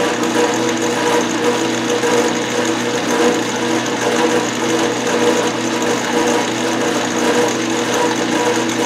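Craftsman Atlas metal lathe running steadily, its motor and drive giving a constant whir, while a turning tool takes a light cut on the spinning workpiece to true up a wobble in a bent part.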